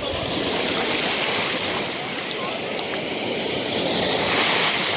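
Black Sea waves washing onto a sandy beach: a steady hiss of surf that swells gently about four seconds in.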